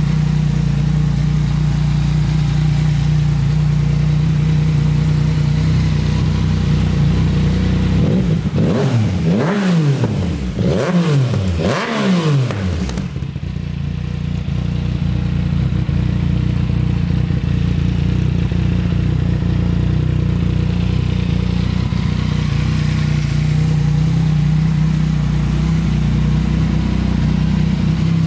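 Yamaha MT-09 Tracer's 847 cc inline three-cylinder engine idling steadily, blipped three times in quick succession about a third of the way through, each rev rising and falling back, then settling to idle again.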